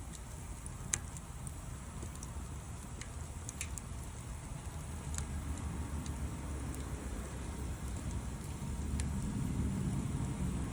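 Wood fire burning: a handful of sharp crackles and pops scattered over a steady low rumble, the loudest pop about a second in.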